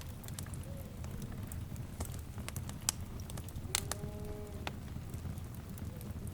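Wood fire crackling, with a steady low rumble of flames and scattered sharp pops. About four seconds in, a brief pitched call, one of the savannah's wildlife sounds, sounds over the fire.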